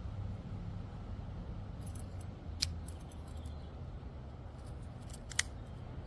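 Small sharp metallic clicks from handling a folding pocket knife, with two louder snaps about three seconds apart, over a low steady hum.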